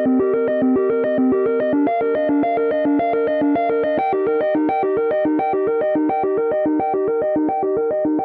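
iPhone ringtone from iOS 26: a synthesizer melody of quick, evenly spaced notes, about five or six a second, whose repeating figure moves higher about four seconds in.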